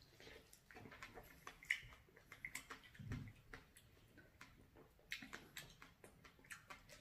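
Faint chewing and lip-smacking of people eating fresh strawberries: scattered soft, wet clicks.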